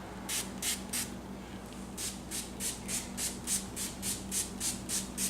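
Three quick squirts from a spray bottle of lubricant, then a wet abrasive pad from a Turtle Wax headlight restoration kit rubbed rapidly back and forth across the plastic headlight lens, about three strokes a second.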